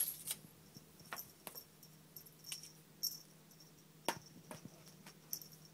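Small metal tag on a cat's collar clinking and jingling as the cat moves, in scattered light metallic clicks, the sharpest about four seconds in, over a faint steady low hum.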